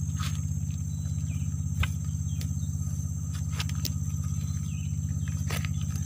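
Insects calling in one steady high tone over a steady low drone that pulses rapidly, with a few short clicks scattered through.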